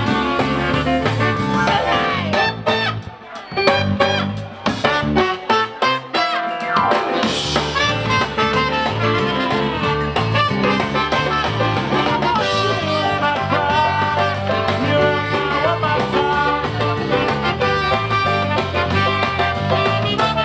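Live swing band playing, with horns and drum kit. About two and a half seconds in, the band breaks into short, separated stabs for a few seconds, then comes back in full.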